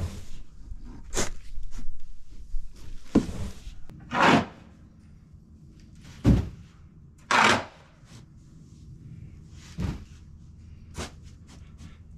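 Ground moist corn being shovelled and tipped into plastic tubs: a string of separate scrapes, knocks and short rushing pours of grain every second or two, with one heavier thud about six seconds in, over a faint steady hum.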